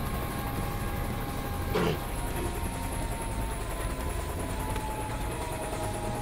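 Helicopter turbine engine and rotor running down after shutdown: a steady whine drifting slowly lower over a constant low rumble. A short knock comes about two seconds in.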